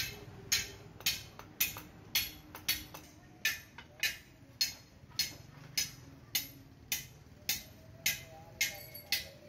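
A small hatchet chopping at a wooden tool handle to shape it. The blows fall at a steady pace of about two a second, each a sharp knock with a short ring.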